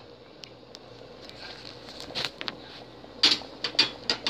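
A utensil clinking and knocking against a metal cooking pot: a quick cluster of sharp clatters about three seconds in.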